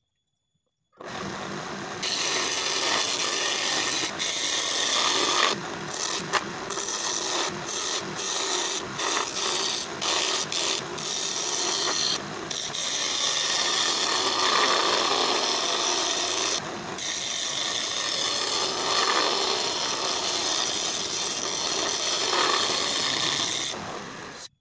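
Chisel cutting a wooden table-leg blank spinning on a simple wood lathe: a continuous rough scraping of steel on wood over the lathe's motor, with many brief breaks as the tool lifts off the wood. It starts after about a second of silence.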